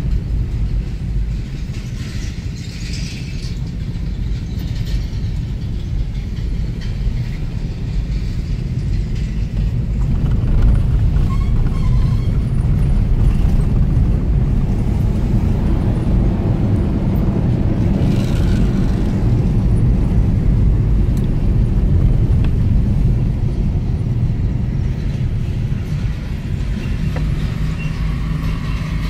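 Steady low rumble of a car's engine and tyres on the road, heard from inside the moving car's cabin, swelling a little midway.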